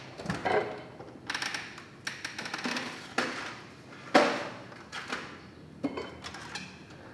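Coffee bean bags crinkling and rustling as they are handled and pulled from a kitchen cabinet, with a run of clicks and knocks of items on the shelf; the sharpest knock comes about four seconds in.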